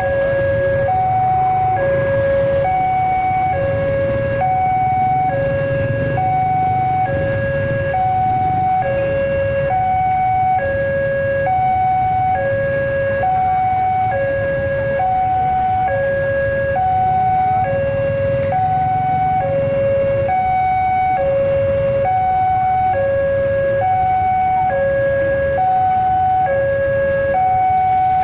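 Railway level-crossing alarm sounding its electronic two-tone warning, alternating evenly between a higher and a lower tone about every three-quarters of a second, over the low steady rumble of idling motorcycle engines.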